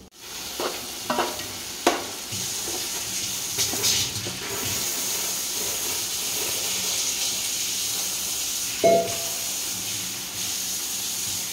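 Onion-tomato biryani masala sizzling steadily in a large nonstick pot over a gas flame, stirred with a wooden spatula that scrapes and knocks against the pot a few times in the first four seconds. One sharper knock with a short ring comes about nine seconds in.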